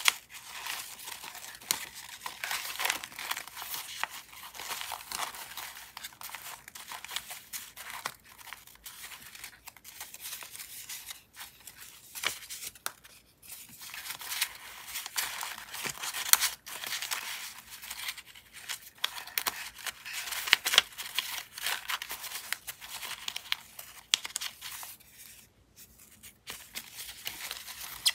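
Scraps of leftover paper rustling and crinkling as fingers riffle through a small wooden box packed full of them, with two short pauses.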